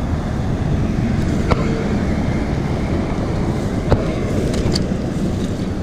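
Steady low wind rumble on the microphone, with a few sharp clicks, the loudest about four seconds in.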